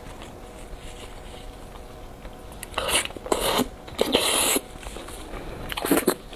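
Close-miked eating sounds: loud slurping and sucking as food and sauce are taken from the fingers into the mouth. There are three bursts, about three seconds in, a longer one around four seconds, and a short one near the end.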